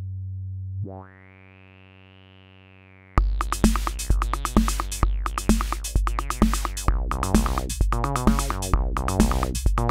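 Akai Rhythm Wolf analog drum machine and bass synth. A held low bass note gives way about a second in to a quieter, brighter, buzzy sustained synth tone, and about three seconds in a looping pattern of kick drum, hi-hats and bass line starts up and runs on.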